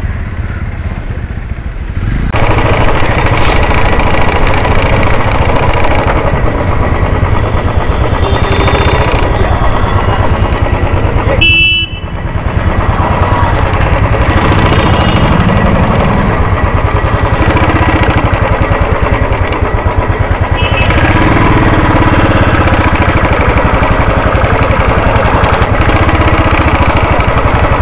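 Motorcycle engine running under way with wind noise on the microphone, getting louder about two seconds in as the bike picks up speed. A short horn beep sounds about halfway through.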